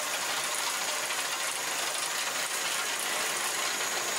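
Skid steer running steadily while the Eterra MT-48 chain trencher cuts a trench, its toothed digging chain rattling through the soil.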